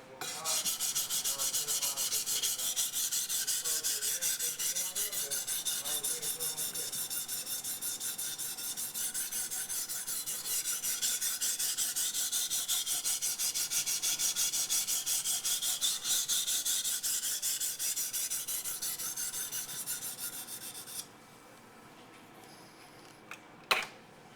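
Steel knife blade stroked back and forth on a 1000 grit waterstone, a quick, even, rhythmic scraping of the edge on the stone that stops about 21 seconds in. A single sharp click follows near the end.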